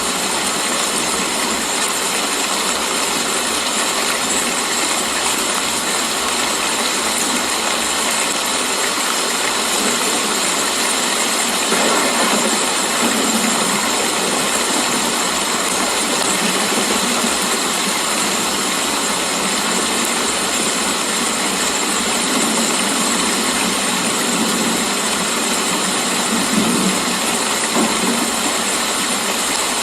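Steady rain falling, an even hiss that swells slightly about twelve seconds in and again near the end.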